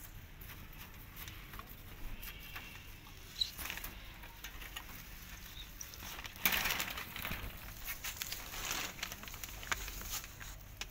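Rustling and crackling of a bunch of leafy green fodder stalks as it is handled and pushed into a rabbit hutch onto straw, loudest from a little past halfway in, with scattered clicks and knocks from the hutch's wire-mesh door.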